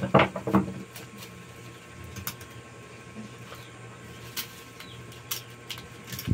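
Black plastic packaging crinkling and rustling as it is cut and picked open with a knife tip, with scattered small clicks. Two louder knocks come right at the start.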